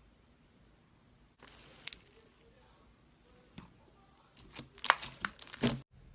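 Slime being squeezed and poked, with a brief crackle, a single pop, then a dense run of sharp crackling pops that cuts off abruptly near the end.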